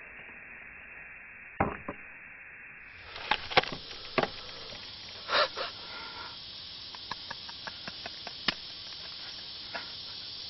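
Scattered light knocks and clicks over a faint steady hiss, a few sharper ones in the first half and lighter ticks after, like handling noise.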